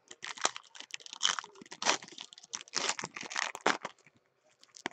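Baseball card pack wrapper crinkling and tearing as it is ripped open by hand, in irregular rustling bursts that stop about four seconds in.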